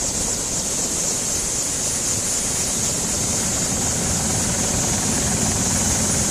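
Light turbine helicopter running on the ground: a steady high-pitched engine whine over a constant rushing noise.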